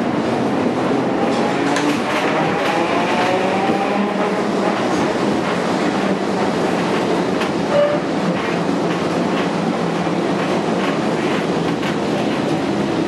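Vintage wooden tram running along street track, heard from inside the car: a steady rumble of wheels and running gear with scattered clicks over the rails. A faint whine rises in pitch about two to four seconds in, and a brief squeal comes a little past the middle.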